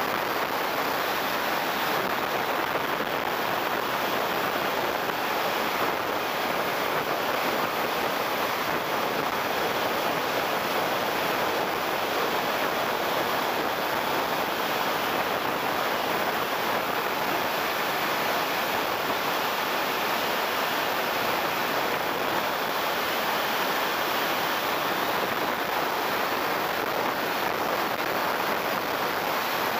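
Steady rush of airflow and turbine noise from a JetCat-turbine RC A-4 Skyhawk jet in flight, heard through its onboard camera.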